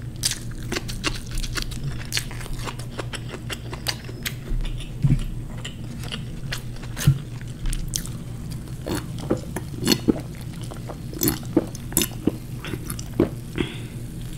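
Close-miked chewing with frequent sharp wet mouth clicks, then sips and swallows of soda drunk from a plastic bottle.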